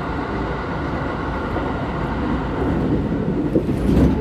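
Electric commuter train running at speed, heard from inside the carriage: a steady rumble of wheels on rail with a faint steady whine, the rumble swelling louder near the end.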